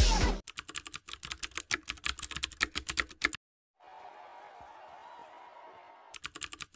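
Rapid, irregular clicking like keys being typed, for about three seconds. A faint steady hum follows, and the clicking returns near the end.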